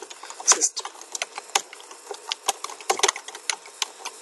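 Computer keyboard typing: quick, irregular key clicks, several a second.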